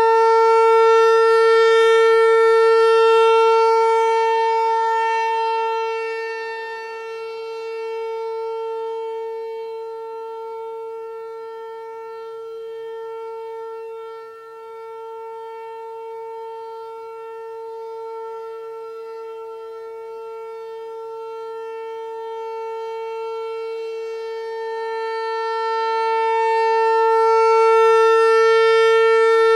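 American Signal T-128 outdoor warning siren sounding a steady, unchanging tone in a monthly test. Its loudness swells and fades as the rotating siren head turns: loud at the start, quieter through the middle, loud again near the end.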